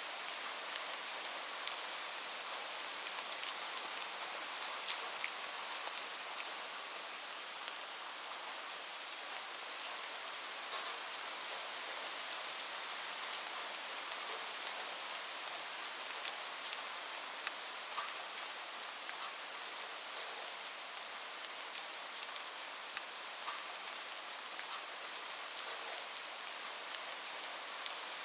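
Steady rain falling, a continuous hiss with many individual raindrops ticking sharply on a hard surface.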